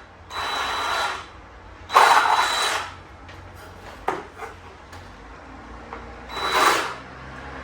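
A power tool cutting into a thin wooden board in three short bursts: one at the start, one about two seconds in and one near the end.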